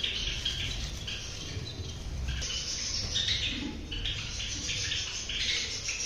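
Java sparrows chirping in a colony aviary: many short calls overlapping from several birds, with some rustling as straw nesting material in a clay pot is handled.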